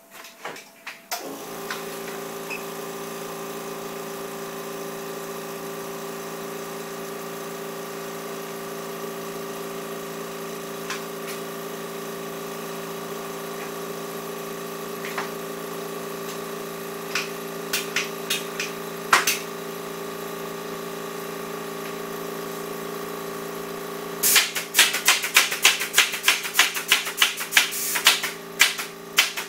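Canvas-stretching machine running with a steady electric hum that starts about a second in. A few sharp clicks come midway, and a fast run of sharp clicks, about three or four a second, comes near the end.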